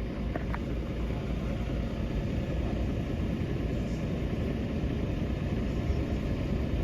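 Tractor-trailer's diesel engine idling steadily while the truck sits stopped with its brakes set.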